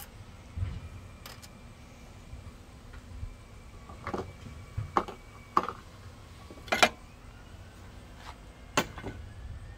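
Scattered sharp clicks and knocks of hand tools being handled: a low thump just after the start, then about six separate clicks from about four seconds in, the loudest about seven seconds in.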